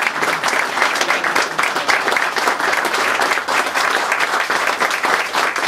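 A crowd applauding: many hands clapping steadily and densely all through.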